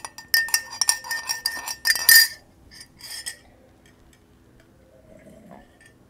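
A ceramic mug and stainless steel dishes clink and rattle as the mug is pulled out of a steel dish rack. The clatter is dense with ringing metallic clinks, loudest about two seconds in, and a few lighter clinks come about a second later.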